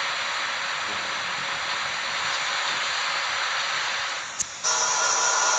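Steady hiss. About four and a half seconds in it dips with a click, then comes back louder as a whirring noise with steady tones running through it.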